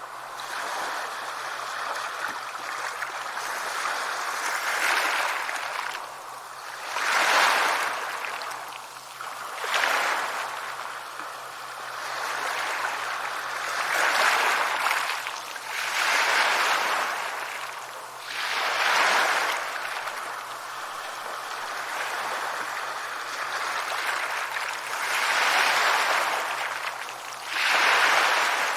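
Sea waves breaking on a shore: a steady wash of surf that swells into about seven louder breakers, a few seconds apart.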